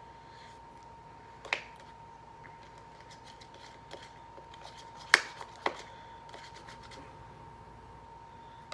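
Slime being stirred with a plastic stick in a container: light scraping ticks, with three sharp clicks of the stick against the container, the loudest about five seconds in.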